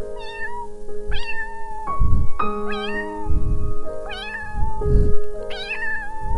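A domestic cat meowing about five times, each meow under a second long, over soft piano music. Low muffled thumps fall between the meows.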